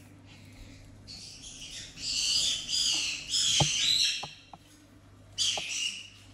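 Parrots squawking with harsh, high calls: one long stretch of about three seconds, then a shorter burst near the end. A few sharp taps fall between them.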